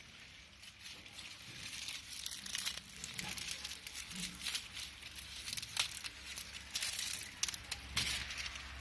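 Rustling and crackling of leaves, twigs and dry plant material being brushed and handled close to the microphone, in irregular crackles that grow busier after about two seconds.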